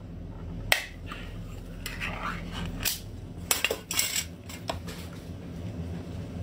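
Metal pull-tab lid of a can being pried and peeled open by hand: a sharp click a little under a second in as the seal gives, then scraping and a few metallic clicks as the lid comes away. A steady low hum runs underneath.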